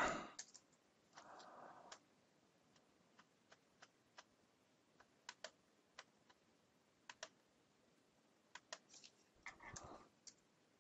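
Faint, irregular keystrokes on a computer keyboard, single clicks spaced out by pauses as a short search word is typed.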